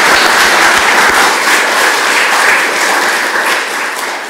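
Audience applauding, a dense patter of many hands clapping that eases off near the end.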